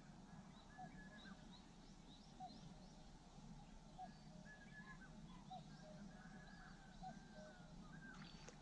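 Faint bird calls: short chirps and whistles, many of them scattered throughout, over an otherwise near-silent background.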